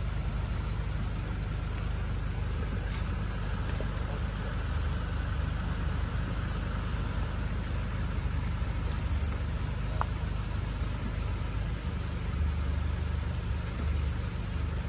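Nissan Navara pickup's diesel engine running steadily at low revs, its low note swelling slightly a few times as it crawls over rocks.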